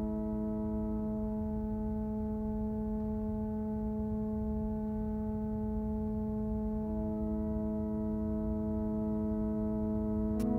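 Background music: a slow ambient drone holding a steady chord of sustained tones over a low rumble. Near the end there is a click and the chord shifts.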